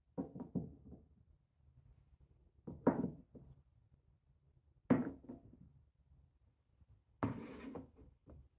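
Solid beech-wood Cuboro marble-run cubes being set down and knocked against one another: small clusters of hollow wooden knocks about every two seconds. About 7 s in comes a brief scrape of a block being slid into place, then two light taps.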